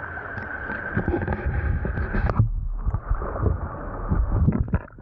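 Muffled water heard through a camera held just under the surface beside a boat: sloshing and gurgling with a steady hum that cuts off abruptly a little over two seconds in, followed by irregular low knocks as the water moves against the camera.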